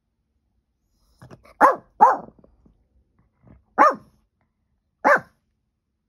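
A dog barking four times: two sharp barks in quick succession about a second and a half in, then single barks about two and three seconds later, with faint softer sounds just before the first and third barks.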